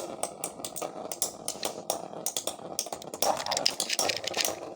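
Two Beyblade spinning tops, a Basalt Horogium copy and Prototype Nemesis, whirring as they spin and knocking against each other, with many quick sharp clicks from the hits.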